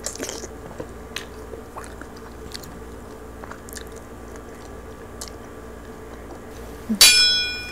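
Close-miked biting and chewing of roast pig's head (lechon), scattered small clicks and crackles from the mouth. About seven seconds in, a loud bell-like ringing tone sounds and fades.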